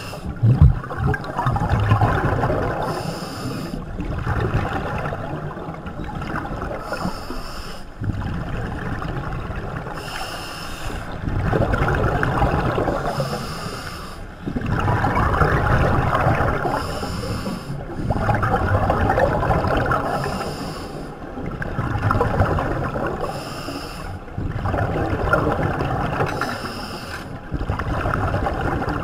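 Scuba diver breathing through a regulator underwater: a short hiss on each inhalation about every three and a half seconds, each followed by a couple of seconds of bubbling as the exhaled air leaves the regulator. A sharp thump about half a second in.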